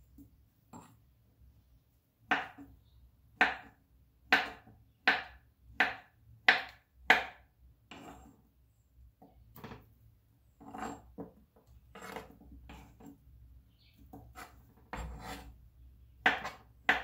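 Kitchen knife chopping soft fruit on a wooden chopping board: a run of about eight sharp, evenly spaced knocks, then softer, irregular knocks, and sharp chops again at the end.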